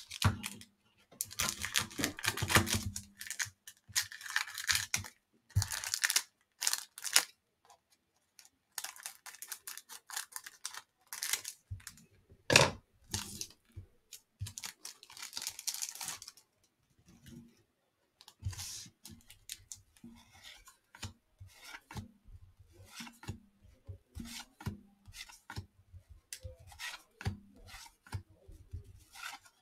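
Cellophane wrappers on 1989 Fleer cello packs crinkling and tearing as packs are handled and opened, in short irregular crackles with brief quiet gaps between them.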